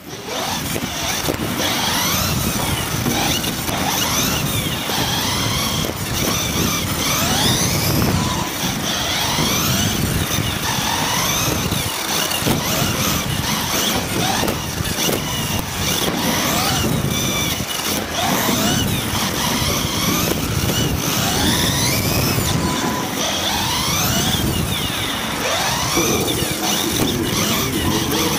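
Team Associated B74.1 1/10 electric off-road buggy heard from on board: its motor and drivetrain whine rises and falls in pitch over and over as it accelerates and slows through the corners, over a steady rush of tyre and chassis noise on the carpet track.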